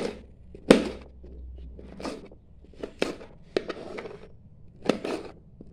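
Kitchen knife chopping sponge gourd into small pieces on a plastic cutting board: a string of short, sharp cuts at an uneven pace, about one every second or less.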